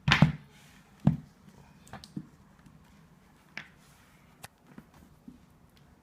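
A few separate knocks and clicks of tools and a template being handled on a wooden door panel, loudest at the start and again about a second in, then smaller taps spaced out.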